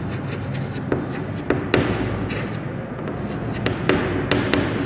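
Chalk writing on a chalkboard: an irregular run of sharp taps and short scratches as letters are written, over a steady room hiss.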